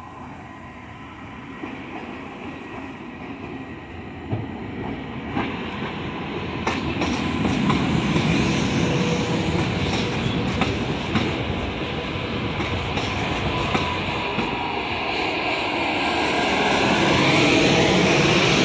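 Newag Impuls electric multiple unit running past along the platform, growing louder as it comes close, with clicks of its wheels over the rail joints. Near the end its electric drive whines, rising in pitch.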